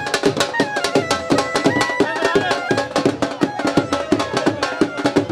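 Dhol drums beaten in a fast, steady rhythm, with a melody playing over them.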